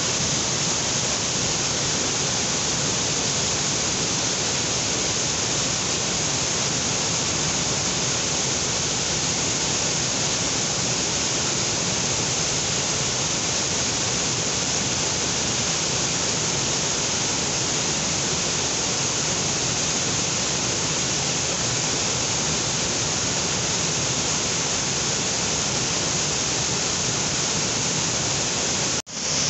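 Mountain torrent of silty water cascading over boulders, a loud steady rushing of white water. It cuts out for an instant near the end.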